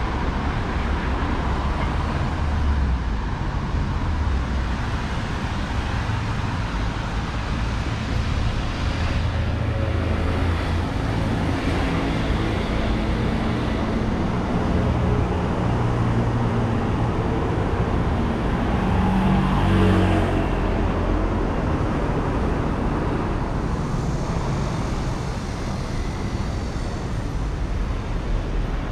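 Road traffic on a city street: cars running steadily, with a louder swell about two-thirds of the way through as a vehicle passes close.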